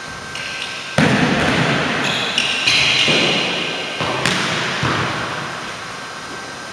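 Volleyball being hit and landing on a hardwood gym floor: sudden smacks about a second in and again just past four seconds, each echoing through the large hall. A high squeak sounds between them.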